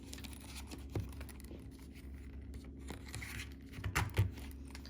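Leatherman bit kits being pushed into the slots of a leather pouch: soft scraping and rubbing with a few light knocks, the loudest two or three coming close together near the end.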